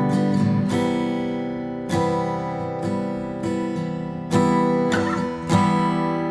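Background music: acoustic guitar strumming chords, a fresh strum every second or two.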